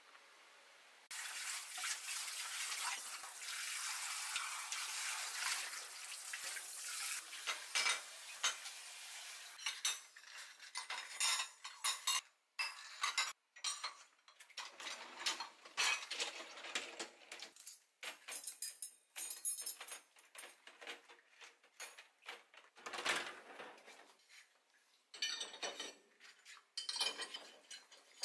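Tap water running into a sink of dirty dishes, with dishes clinking, for the first several seconds. After that come many separate clinks and knocks as ceramic bowls, plates and glass containers are set into a dishwasher's racks.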